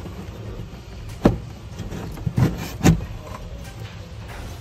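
A few dull knocks and clunks of parts being handled in a plastic golf cart battery compartment, three of them standing out: about a second in, near halfway and just before three seconds. A low steady hum sits under them.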